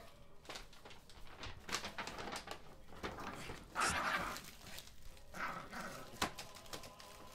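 Rustling and crinkling of a paper gift bag and a stocking's contents being rummaged through, loudest about four seconds in, with a small dog whining faintly.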